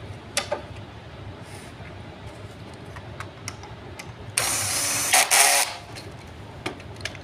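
Cordless drill driving a screw into the wooden table frame: one run of a little over a second, ending in two louder pulses. A couple of light knocks about half a second in.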